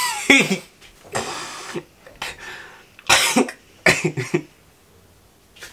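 A boy laughing in several short, breathy bursts spread over a few seconds.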